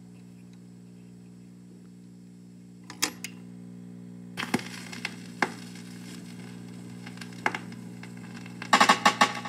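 Vinyl record lead-in on a turntable: a steady electrical hum, then two sharp clicks about three seconds in as the stylus goes down. From about four and a half seconds the stylus runs in the lead-in groove with surface hiss and occasional pops. Near the end comes a quick, louder run of clicks as the record's opening starts.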